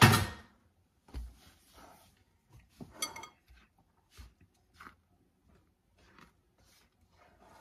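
Silicone spatula stirring flour into cookie dough in a glass mixing bowl: scattered soft scrapes and crunchy taps against the glass, after a sharp knock right at the start.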